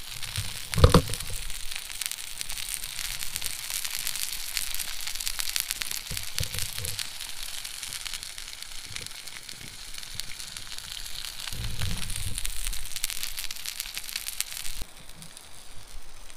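Beef burger sizzling in a frying pan over a small camp stove: a steady crackly hiss full of fine pops. A loud thump about a second in, and the sizzle drops away near the end.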